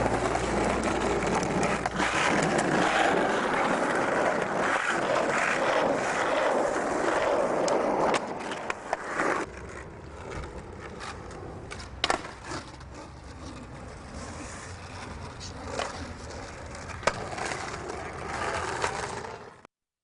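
Skateboard wheels rolling on pavement, loud for about the first eight seconds and then quieter, with sharp clacks of the board popping and landing about nine, twelve and seventeen seconds in. The sound cuts off abruptly near the end.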